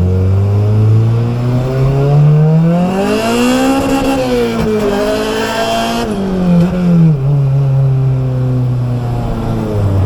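Car engine revving hard: its pitch climbs to a peak about four seconds in, dips and rises again, then falls back to a steady lower drone, with a hiss of tyre and exhaust noise while it is at its highest.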